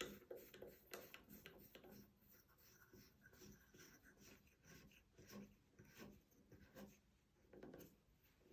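Faint, irregular rubbing and light clicking of a part being threaded by hand onto a Moen 3570 shower valve assembly.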